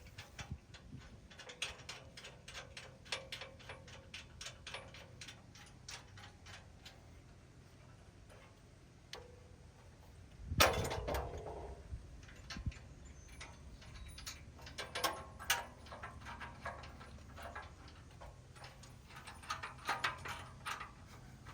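Hand ratchet wrench clicking in quick runs as the bumper's mounting bolts are worked, with one louder metal clank about ten seconds in.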